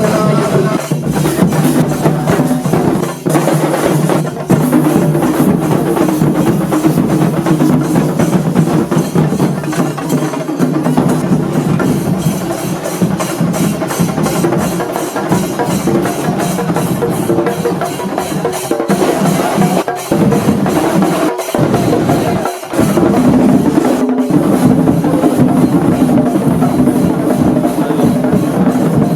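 Rapid, continuous drumming by a percussion ensemble, with a few brief dips in the beat.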